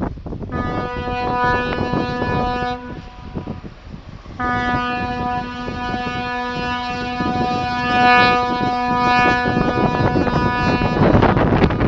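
A ship's horn sounding two long, steady blasts: the first about two seconds, the second after a short pause and held for about six and a half seconds, over a rushing background noise.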